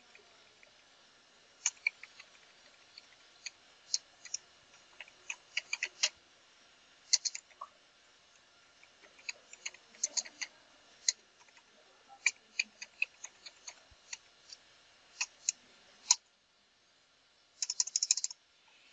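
Computer keyboard keys clicking as a command is typed, sparse and irregular single keystrokes, with a quick run of key presses near the end.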